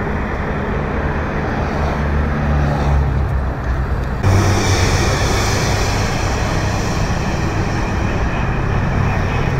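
Procession traffic passing on a freeway: steady tyre and engine noise from cars and police motorcycles, with a low engine hum. The sound changes abruptly about four seconds in.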